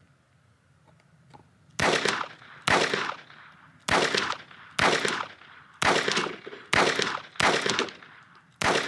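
Phoenix HP22A .22 LR semi-automatic pistol firing eight shots at a steady pace of about one a second, starting a couple of seconds in. Each crack is followed by a short echo.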